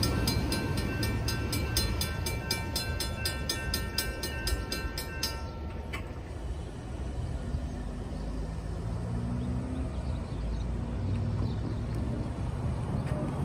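Railroad crossing bell ringing in quick, even strikes, then stopping suddenly about six seconds in. A low rumble from the departing train runs underneath and carries on after the bell stops.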